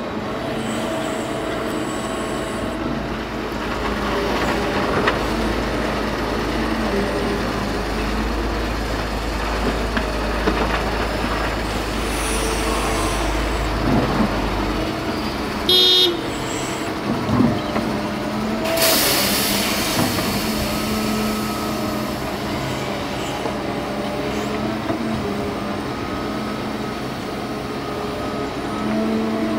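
Liebherr 944 crawler excavator's diesel engine and hydraulics working steadily, with a Roman diesel dump truck running alongside as it is loaded with soil. A short horn toot sounds about halfway through, and a burst of hissing follows a few seconds later.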